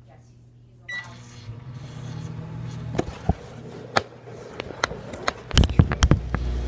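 Microwave oven keypad beeps once, then the oven runs with a steady low hum. Several sharp knocks and clatters sound over it, loudest near the end.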